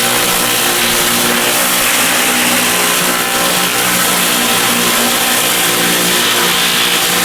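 An engine running steadily at a near-constant speed, its pitch wavering slightly, with a steady hiss above it.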